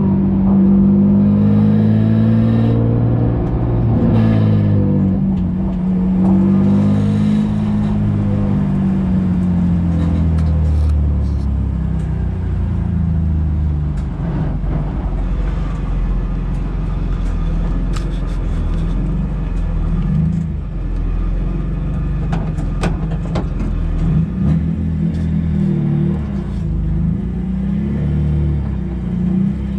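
Race car engine heard from inside the cockpit, pulling at low revs with the pitch rising and falling during the first ten seconds, then running lower and steadier. A few sharp clicks or knocks come through about halfway and again a little later.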